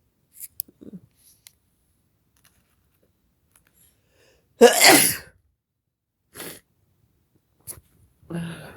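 A person sneezes once, loudly, about halfway through: a sneeze brought on by black pepper. Fainter short breath-like sounds come before and after it.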